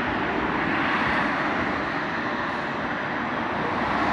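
Steady rushing background noise with no distinct strikes or tones, swelling slightly near the end.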